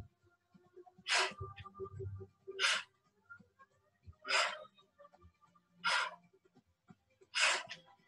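A woman's hard, forceful breaths through the mouth, five in all, one about every second and a half. This is paced exercise breathing in time with the repetitions of cycling Russian twists.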